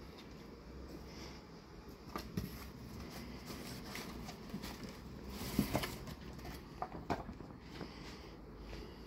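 Handling sounds of paperback books in a cardboard box: soft knocks, taps and a brief rustle as a copy is slid out, loudest a little past the middle.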